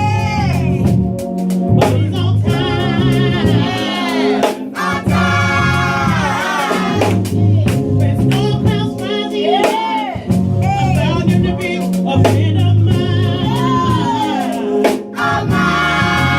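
Gospel worship music sung by a group of singers over a band, with steady bass notes and drum hits.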